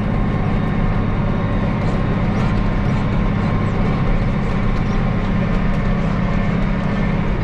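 Case IH 7140 tractor's six-cylinder diesel engine running steadily under load, pulling a disc lightly through the ground.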